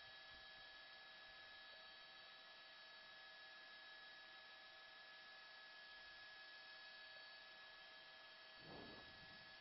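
Near silence: a faint steady hiss with a constant electrical hum, and a brief faint sound near the end.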